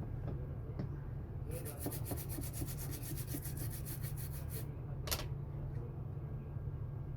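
Fast, even rubbing strokes on a hard surface, about eight a second for some three seconds, followed by a single sharp click, over a steady low hum.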